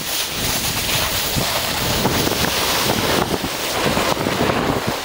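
Wind rushing over the microphone of a camera carried downhill on skis, with the steady hiss of skis sliding over packed snow.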